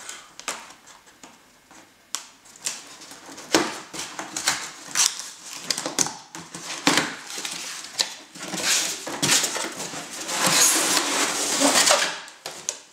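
Cardboard box and packaging being opened and handled by hand: a string of irregular clicks, knocks and scrapes, with a longer stretch of rustling and crinkling about two-thirds of the way in.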